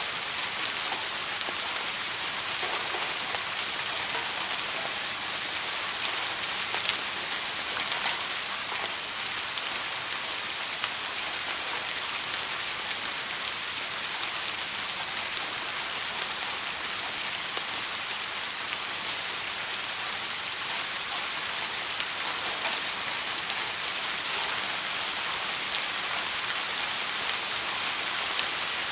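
Steady rain falling, an even hiss with scattered individual drops pattering on a surface.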